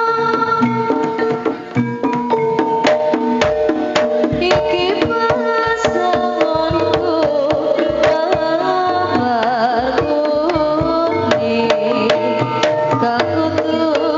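Javanese jaranan music played live through a sound system: rapid hand-drum (kendang) strokes over a sustained, wavering melody line.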